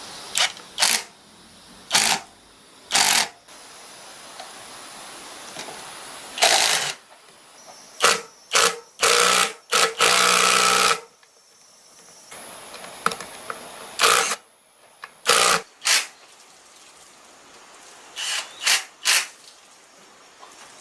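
Repeated short bursts from a workshop tool during engine repair work, most lasting under a second and one running about a second and a half, with a low hiss between them.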